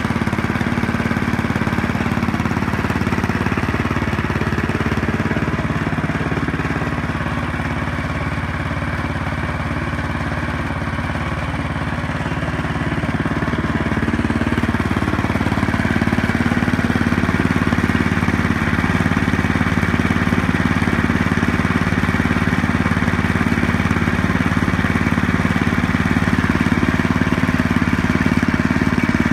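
1973 Ariens snowblower's 7 hp Tecumseh single-cylinder four-stroke engine running steadily at about half throttle, warming up just after a cold start. It gets a little louder about halfway through.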